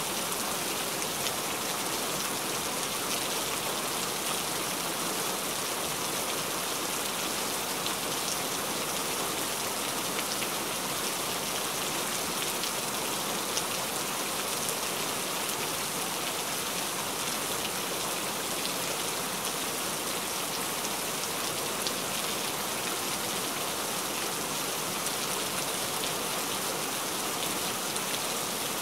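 Steady rain: an even hiss with faint, scattered ticks of single drops, unchanging throughout.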